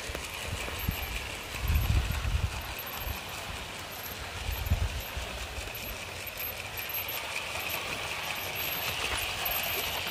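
OO gauge Bachmann GWR 78xx Manor model steam locomotive and its coaches running on the track, wheels clicking steadily over the rail joints over a motor whir. A few low rumbles of wind buffet the microphone, the loudest about 2 seconds in.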